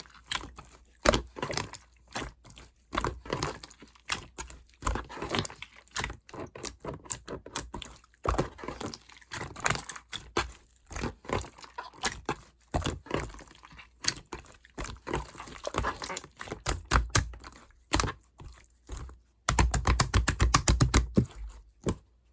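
Clear slime mixed with clay being kneaded and pressed by hand, giving irregular sticky clicks and pops. Near the end the clicks come in a fast, dense run, then stop abruptly.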